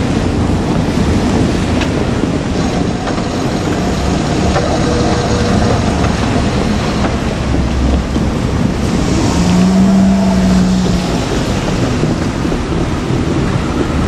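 JR Kyushu KiHa 47 diesel railcars running slowly toward the listener over yard tracks: a steady diesel engine rumble with wheels on the rails. About ten seconds in, a brief low steady tone rises above it.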